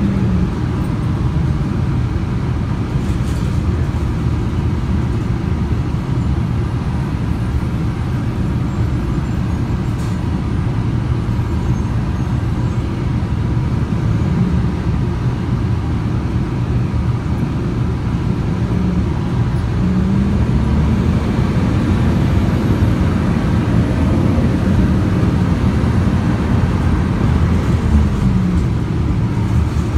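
City transit bus running, heard from inside the passenger cabin: a steady engine and road rumble. A pitched whine rises about two-thirds of the way through and fades near the end.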